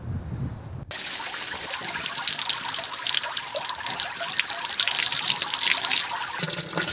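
Water running from an outdoor tap through a hose spout, trickling and splashing steadily. It starts abruptly about a second in.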